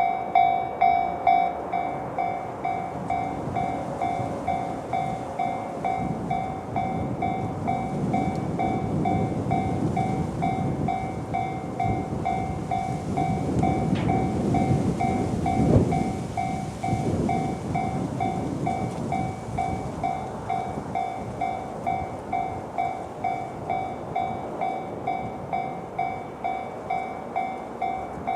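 JR standard electronic level-crossing alarm ringing at about two strikes a second while a JR 211 series electric train passes through the crossing. The train's running noise builds, peaks with a sharp knock about halfway through, and fades near the end, with the alarm ringing all the while.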